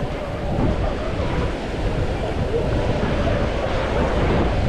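Ocean surf washing onto a sandy beach, a steady rushing wash, with wind buffeting the microphone.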